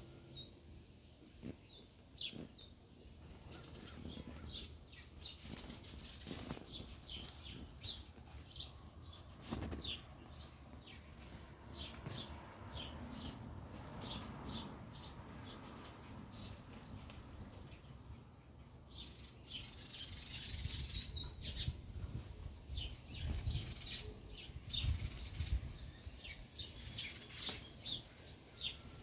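Small birds chirping in short, high notes scattered throughout, with a low rumble that grows louder in the second half.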